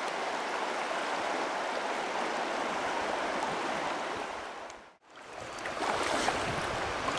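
Shallow river current running over gravel, a steady even rush. It fades out briefly about five seconds in and then comes back.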